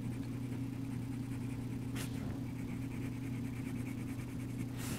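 Red colored pencil scratching on drawing paper in quick back-and-forth shading strokes, over a steady low hum. There is a sharper scrape about two seconds in and another near the end.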